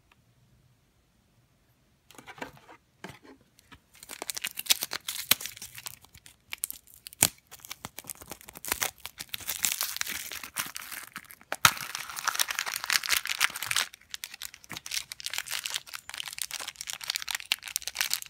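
Crinkling and tearing of the plastic wrapping on a Shopkins blind pumpkin capsule and of the yellow blind bag inside it, starting about two seconds in, with a couple of sharp clicks along the way.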